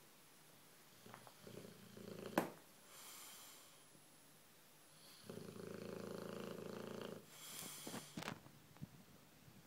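Bulldog snoring in its sleep: two long, rattling snoring breaths, each followed by a breathy hiss, with a sharp snort about two and a half seconds in.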